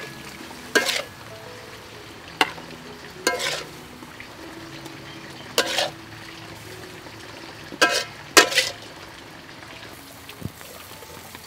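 Metal spatula scraping a wok while stir-frying wing beans and shrimp: about half a dozen sharp scrapes over a low sizzle. Soft background music underneath.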